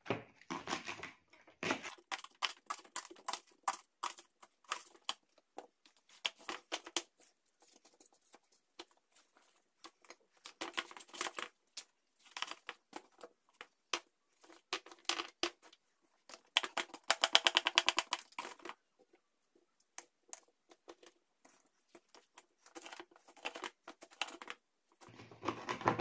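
Knife cutting and chopping vegetables and fruit on a plastic cutting board: irregular runs of short taps, with one fast run of strokes lasting about two seconds, about seventeen seconds in.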